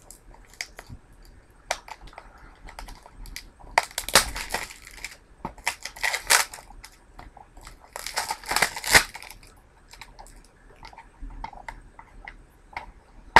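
Plastic wrapping on a DVD case being crinkled and torn off in three louder rustling spells, with scattered small clicks and taps as the case is handled.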